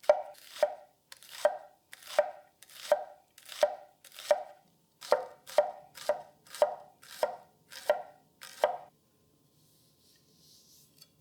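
A heavy bunka kitchen knife chopping a shallot on a cutting board: a steady run of knocks, about two to three a second, that stops about nine seconds in.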